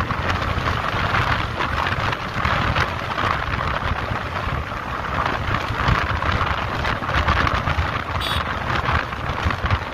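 Wind rushing over the microphone of a motorcycle cruising at about 90 km/h, over the steady running of the bike and its tyres on the road.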